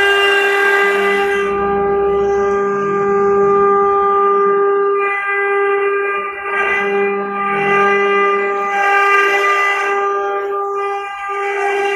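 Steady whine of a CNC stone-engraving machine's spindle running while it carves stone. It holds one pitch throughout and dips briefly three times.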